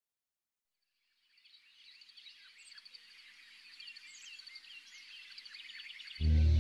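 Faint chorus of small birds chirping and trilling, fading in after a moment of silence and growing gradually louder. Near the end, music with deep bass notes starts abruptly.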